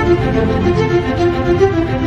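Background music with a melody of short, quickly changing notes over a steady low bass line.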